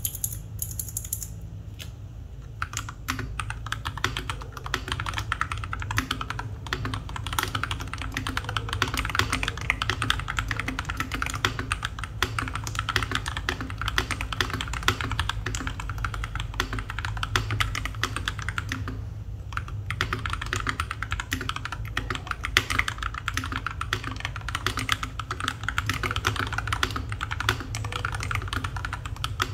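FL680 mechanical keyboard with Tecsee Purple Panda tactile switches and NJ80 keycaps, its case freshly lined with foam, typed on continuously in a sound test: a dense, unbroken stream of keystrokes with a brief pause a little past the middle.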